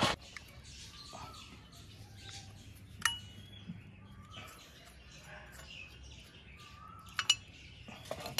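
Sharp metallic clinks of tools and loose parts on a brush cutter engine being taken apart, three strikes a few seconds apart, one of them ringing briefly. Birds chirp in the background.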